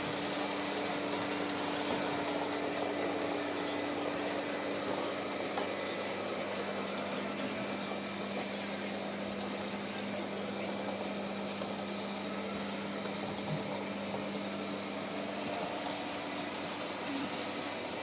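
Robot vacuum cleaner running on carpet: a steady motor whir with brush and suction noise and a low hum, one of its tones dropping out about six seconds in.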